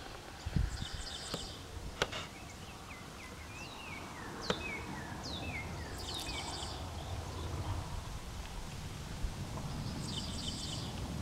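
Outdoor wildlife calls: a buzzy, pulsed trill that comes three times, a few seconds apart, and a run of short falling chirps in between, over a steady low rumble. A few sharp clicks stand out in the first half.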